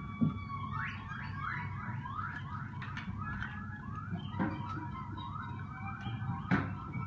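A repeated squeaky, whistle-like call that sweeps upward in pitch about two times a second, like an alarm, over a steady low rumble. A few sharp knocks cut in, the loudest shortly after the start and near the end.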